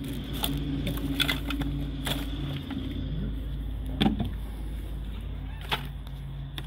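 Hands rummaging through plastic dolls and stuffed animals in a wooden toy chest: scattered clicks and knocks, the sharpest about four seconds in, over a steady low hum.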